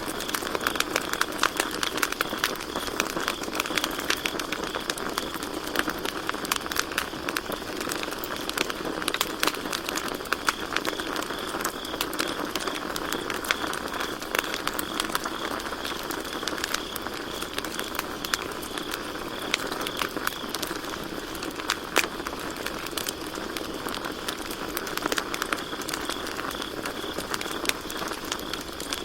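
Campfire crackling, with frequent sharp pops over a steady hiss of burning wood, and one louder pop about two-thirds of the way through. Crickets chirp steadily in the background as a high, finely pulsing trill.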